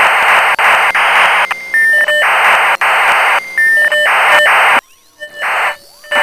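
Electronic intro sting of harsh radio static switched on and off in short blocks, with steady electronic beep tones sounding between the blocks. The static cuts out nearly five seconds in, a short burst follows, and it comes back loud near the end.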